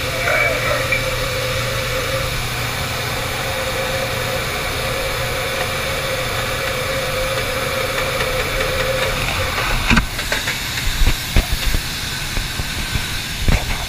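Steady engine drone with a hiss, heard from inside the vehicle, and a faint steady tone that fades out about nine seconds in. From about ten seconds in, several sharp thumps and knocks break through.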